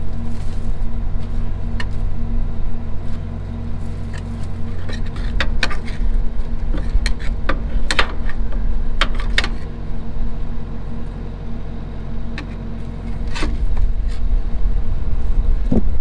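Diesel tractor engine idling steadily, with scattered sharp knocks and scrapes as a wooden-handled tool rakes rotten grain and debris out of a grain cart's steel auger sump.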